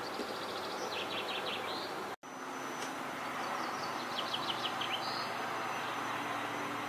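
Steady outdoor rushing noise with a small songbird giving a quick high trill of several notes, twice. The sound cuts out for an instant about two seconds in.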